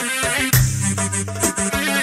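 Live Arabic band music at a wedding party: instrumental melody over a steady drum beat, without singing.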